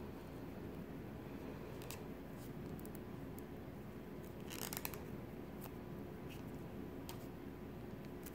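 Faint ticks and rustles of a crochet hook working yarn, a few small clicks scattered over a steady low room hum, with a short cluster of them about halfway through.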